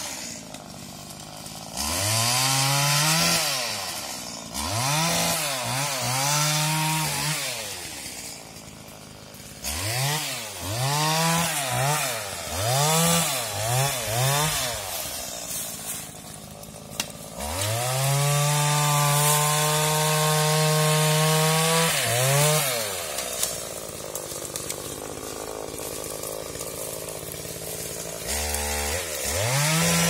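Two-stroke chainsaw revving in short blips again and again, dropping back to idle between them. Twice it is held at full throttle, for about four seconds past the middle and again near the end, as it cuts through hazel stems.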